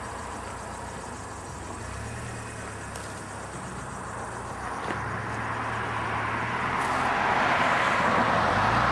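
Cars driving past close by: engine and tyre noise over a low steady hum, swelling louder over the last few seconds.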